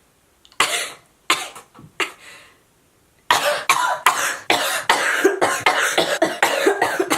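A person coughing, sick: three separate coughs, then about halfway in a long, unbroken fit of rapid coughs.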